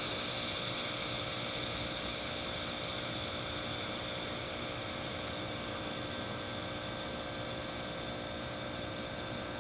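Air hissing steadily out of a small log-splitter tire through its valve stem, held open with an air chuck to deflate the tire; the hiss eases off slightly as it empties.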